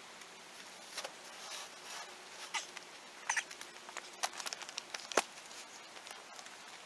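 Footsteps crunching over loose creek rock, with scattered clicks and knocks of stones shifting underfoot; the loudest is a sharp knock about five seconds in.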